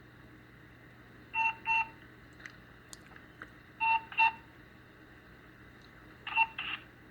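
Telephone beeping over the phone line: three pairs of short electronic beeps, a pair about every two and a half seconds. The caller was told that this beeping meant the house phone had just been unplugged.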